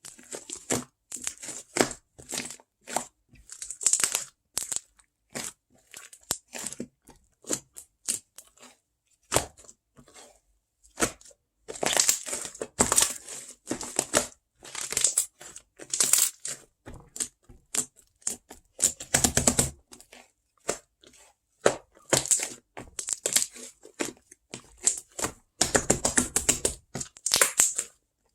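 Close-up crinkling, crushing and tearing sounds: irregular crackly bursts, busier in several stretches, with a few deeper crunches among them.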